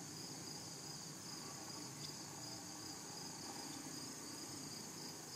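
Faint, steady, high-pitched chorus of field insects, unbroken throughout.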